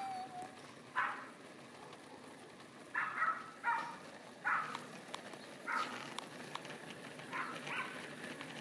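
A dog barking: about seven short barks at irregular intervals, some in quick pairs.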